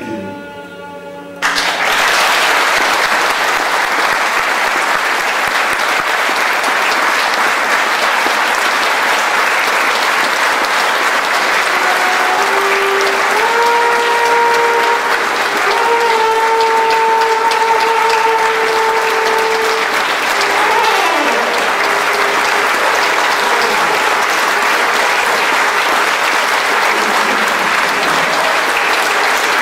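Loud audience applause breaks out about a second in as the music stops, and carries on throughout. Partway through, a trombone plays a few held notes over the clapping, ending with a falling slide glissando.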